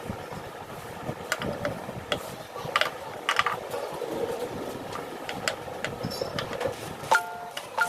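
Hand tools clinking and knocking against metal motorcycle parts: scattered sharp clicks, with one louder metallic clink that rings briefly near the end.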